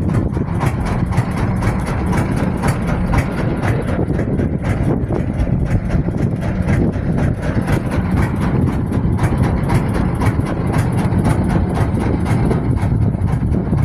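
An engine running steadily, a continuous low drone with no change in speed.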